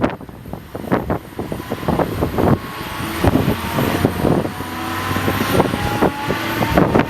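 Gusting wind buffets the microphone throughout. From about two and a half seconds in, a Boeing 737-800's jet engine whine slowly rises in pitch as the engine spools up.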